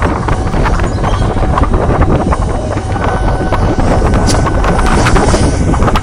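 Layered atmospheric sound design: a loud, wind-like rumble on the microphone with crackling and rustling over it, built from paper wobbled in front of a microphone and other noises. A faint steady high tone comes in about halfway.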